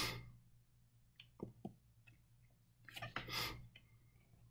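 Quiet pause with a low steady hum, a few faint clicks about a second and a half in, and a short rush of hissy noise around three seconds.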